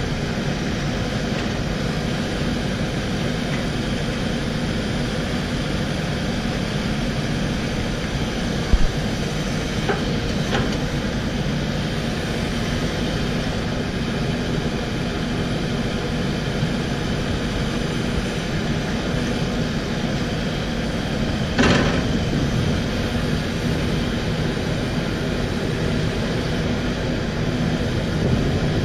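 Takeuchi TB1140 excavator's diesel engine running steadily as the machine works, with a few short knocks, the loudest about three quarters of the way through.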